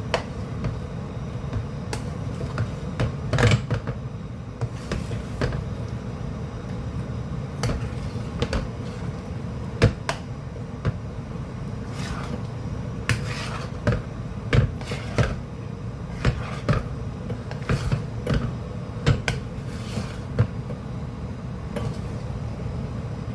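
A stirring utensil knocking and scraping against a cooking pot as thick, sticky calamay is worked, with irregular knocks over a steady low hum.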